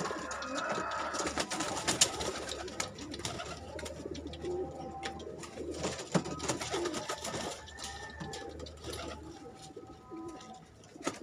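Domestic pigeons cooing in short low repeated calls, with sharp clicks and flutters of wings as birds flap around the loft.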